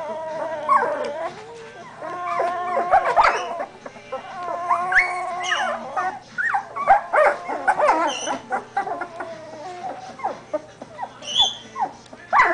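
Litter of 17-day-old Doberman Pinscher puppies whimpering and whining, several short high cries overlapping and coming one after another.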